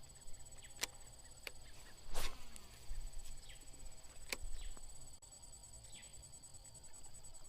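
Steady high-pitched insect buzzing with a few short falling bird chirps, broken by several sharp clicks, the loudest about two seconds in.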